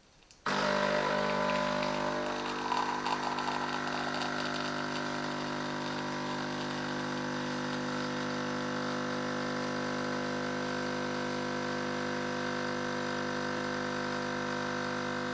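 BEEM espresso machine's pump switching on suddenly about half a second in and running with a steady hum, pushing water through the portafilter to brew a single espresso shot.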